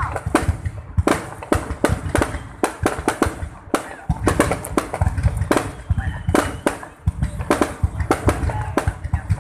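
Fireworks going off in quick, irregular succession: many sharp bangs and crackles over a low rumbling boom, with no let-up.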